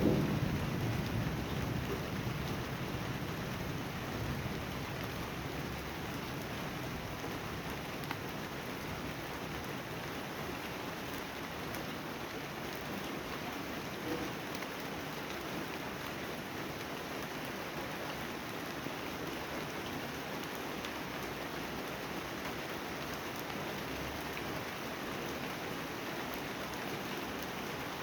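Steady rain falling, with a thunder rumble dying away in the first couple of seconds.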